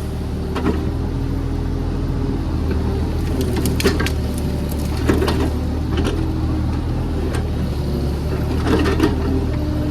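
JCB JS30 Plus mini excavator's diesel engine running steadily under hydraulic load, with a few sharp clanks and knocks around four, five and nine seconds in as the bucket grips and works a large tree root.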